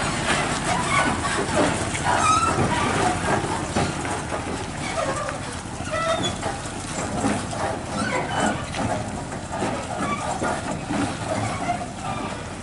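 Heavy Volvo FM tractor unit with a loaded lowboy trailer driving past and pulling away, a steady low rumble that slowly fades, with many short high-pitched chirps scattered over it.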